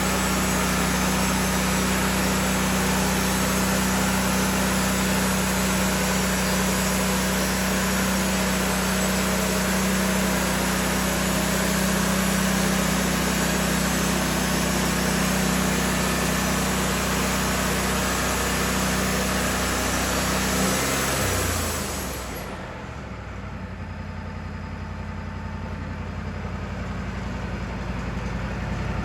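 Wood-Mizer LT40 sawmill running: the engine pulls steadily under load with a broad hiss of the band blade cutting. About three-quarters through, the engine speed drops and the blade noise cuts off. The engine keeps running at low speed, growing louder near the end.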